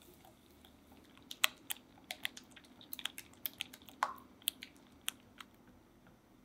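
Red silicone whisk beating eggs and sugar in a glass bowl, its wires clicking and tapping against the glass in an irregular string of sharp ticks, thickest in the middle.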